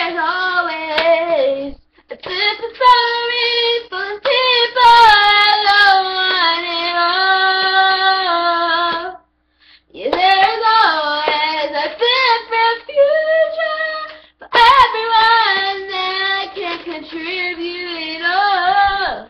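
A young girl singing unaccompanied, in long held and bending notes with a few short breaks between phrases.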